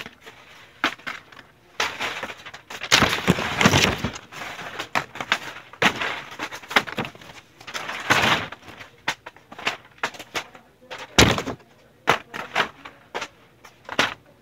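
Irregular knocks, clatters and crashes, with longer crashing noise about three to four seconds in and again around eight seconds, and one sharp loud crash about eleven seconds in.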